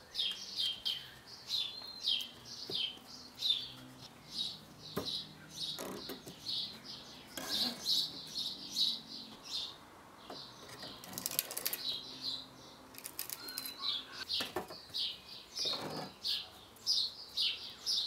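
Small birds chirping over and over, several chirps a second. A few wooden knocks and a scrape are heard as pine boards are laid onto a stack.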